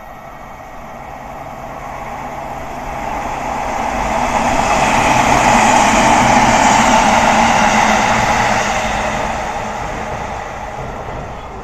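A train passing close by at a station platform, its running noise swelling to a peak about halfway through and then fading away.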